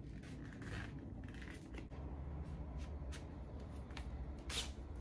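Cardboard jacket of a 10-inch vinyl record being handled and opened, with a series of short papery rustles and scrapes as the record in its sleeve slides out. The loudest scrape comes near the end.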